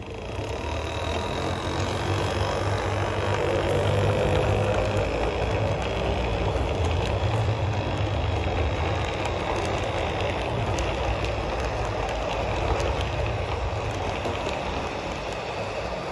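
Steady low vehicle rumble that builds over the first few seconds and then holds, with faint scattered clicks.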